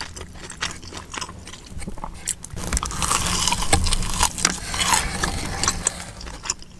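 Close-up mukbang eating sounds of a crispy, Taki-coated Korean corn dog: wet clicking chews, then loud dense crunching from about two and a half seconds in that eases off near the end.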